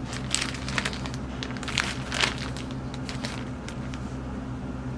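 Irregular crinkling and rustling handling noise, densest in the first couple of seconds, over a steady low hum.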